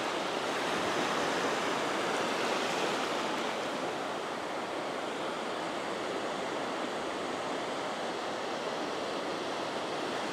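Small ocean surf breaking and washing over the shallows in a steady rush of water, easing off a little partway through.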